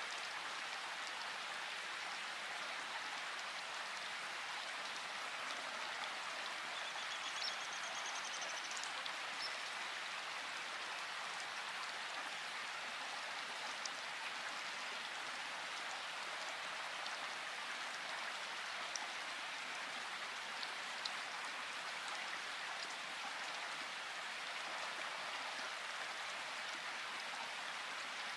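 Steady, even hiss like light rain, with a few faint ticks.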